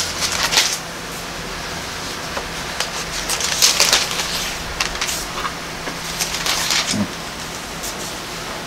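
Pages of a Bible being turned and rustled while a passage is looked up, in three bursts of rustling a few seconds apart, over a steady low room hum.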